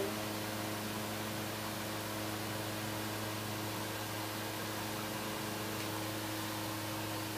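Steady electrical hum over a faint even hiss, unchanging throughout.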